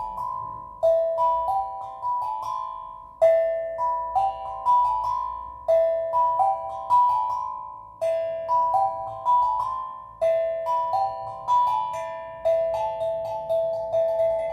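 Steel drum playing slow, gentle phrases: short rising runs of three or four struck notes, each ringing and fading, the run repeating every couple of seconds.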